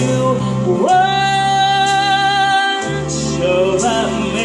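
Pop song with a woman singing a long held note over a band backing with a steady bass line, followed by a shorter sung phrase.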